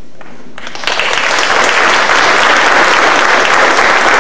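Audience applauding: the clapping breaks out suddenly under a second in and stays loud and steady.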